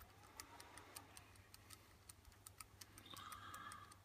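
Faint, irregular ticking and clicking from the small solder paste dispenser's drive mechanism as its piston is moved in by hand, with a brief faint whine about three seconds in.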